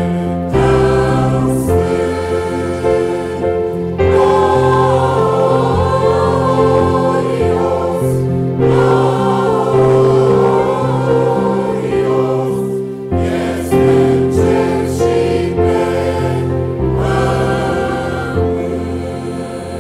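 Mixed church choir singing a hymn in harmony with electronic keyboard accompaniment. Held notes come in phrases of about four seconds, growing quieter toward the end.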